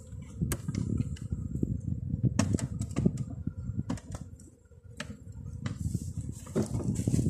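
Irregular sharp clicks and knocks of wooden honey frames and a plastic box being handled, over a low, uneven hum of honeybees. The hum drops away for a moment about halfway through.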